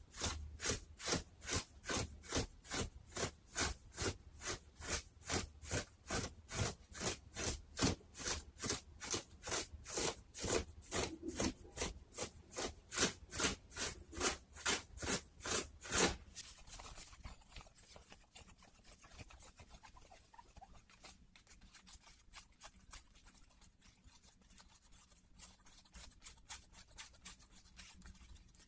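Denim jeans stroked in quick, even scratchy strokes, about two or three a second, for some sixteen seconds, then softer, irregular rubbing of the fabric.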